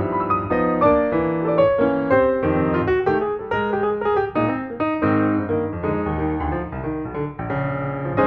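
Piano music: a run of short notes over chords at a steady pace.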